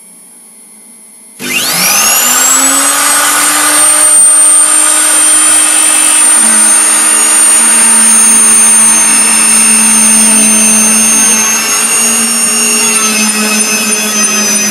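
Electric router used as a CNC spindle, switched on about a second and a half in and whining up to full speed within a second, then running steadily at a high pitch. Its tone dips slightly about six and a half seconds in as the bit takes load cutting into MDF.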